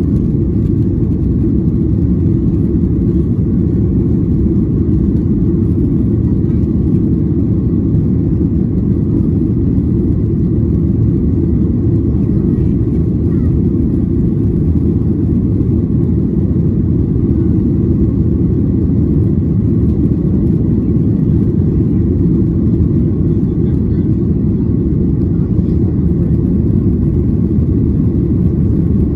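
Boeing 737-800's CFM56-7B turbofan engines at takeoff thrust, heard inside the cabin during liftoff and the initial climb: a loud, steady low rumble that does not change.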